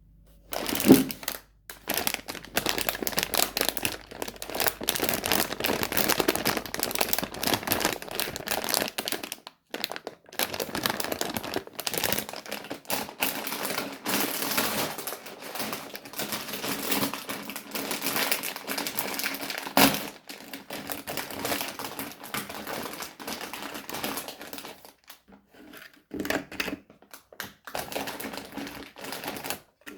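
Plastic sweet wrappers crinkling and crackling as they are handled and unwrapped, in dense runs of small clicks with a few short pauses. A sharp knock sounds about a second in.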